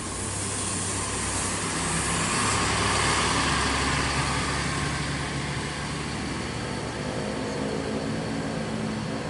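Diesel engine of an intercity coach bus running as the bus drives past close by and then pulls away across the terminal lot; loudest about three seconds in.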